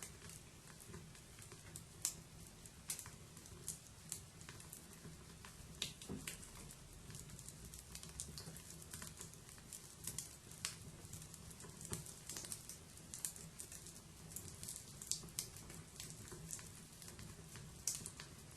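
Wood fire burning: irregular crackles and snaps with a few sharper pops, over a faint steady background.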